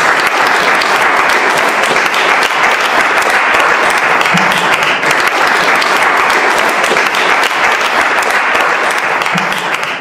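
Audience applauding, a steady dense clapping from many hands.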